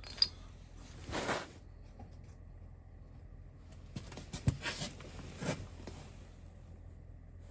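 Low room hum with a brief rustle about a second in, then a cluster of light clicks and short rustles of things being handled between about four and six seconds.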